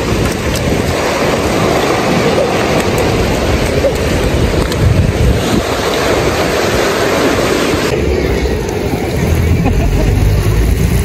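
Ocean surf washing up the sand with wind on the microphone. About eight seconds in the surf hiss drops away abruptly, leaving mostly a low wind rumble.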